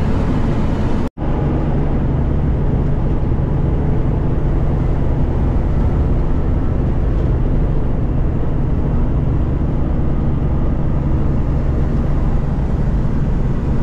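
ProStar semi-truck driving at steady speed on the highway, heard from the cab: a steady engine and road drone. The sound cuts out for an instant about a second in.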